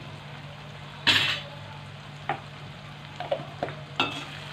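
Chopped tomatoes frying in oil in a steel kadai, with a steel spatula scraping and tapping against the pan. There is one louder scrape about a second in, a few sharp clicks later, and a steady low hum underneath.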